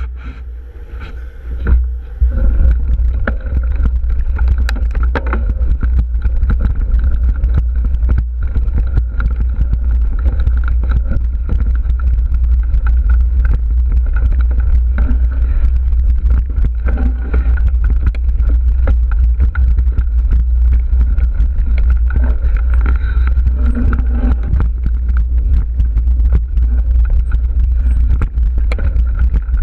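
A mountain bike riding a dirt singletrack, with wind buffeting the bike-mounted action camera's microphone as a constant low rumble that grows louder about two seconds in. Frequent small clicks and rattles come from the bike jolting over the trail.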